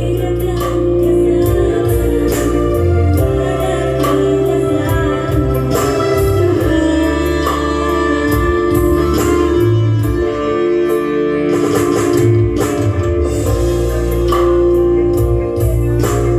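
Loud amplified music from an electronic keyboard (orgen): sustained melody and chord tones over a strong bass and a steady, regular drum beat, played through a concert sound system.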